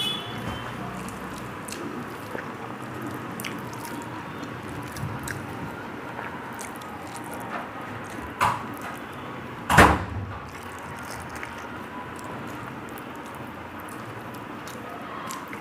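Close-up eating sounds: wet chewing and fingers squishing rice mixed with egg curry on a steel plate, with small wet clicks throughout. Two sharp knocks, the second the loudest, about eight and a half and ten seconds in.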